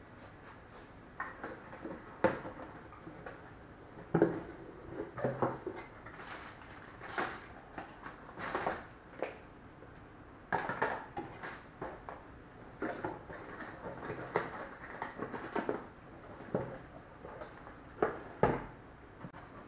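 Cardboard boxes, paper manuals and small boxed accessories being handled and set down on a hard tabletop: irregular taps and knocks with short rustling slides of card and paper.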